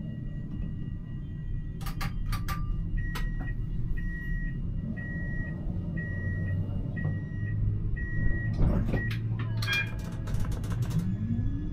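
Siemens Avenio tram at a stop: six evenly spaced door-closing warning beeps, about one a second. A cluster of clunks and clicks follows as the doors shut, over a steady low hum. Near the end the traction motors start a rising whine as the tram pulls away.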